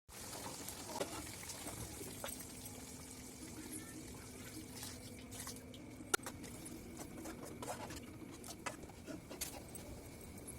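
Faint scattered small clicks and pops, with one sharper tick about six seconds in, over a low steady hum.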